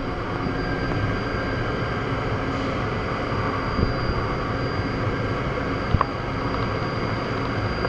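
Niigata SPN-50 horizontal machining center running with its spindle turning unloaded at 1,000 RPM: a steady mechanical hum and hiss with a faint high whine. A single sharp click about six seconds in.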